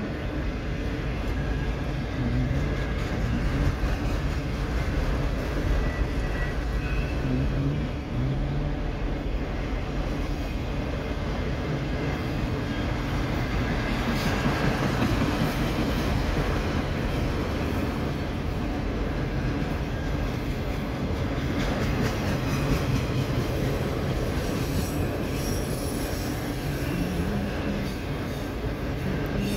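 Freight train of CSX autorack cars rolling past, a steady rumble of wheels on rail with no letup.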